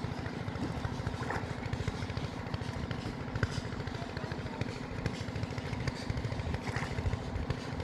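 An engine running steadily at low speed, a rapid even low pulsing with a steady hum.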